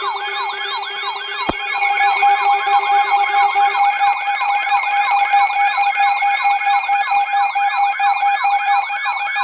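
Electronic siren warbling fast, rising and falling in pitch about three times a second over a steady high tone. A lower steady tone drops out about four seconds in, and there is one sharp click about a second and a half in.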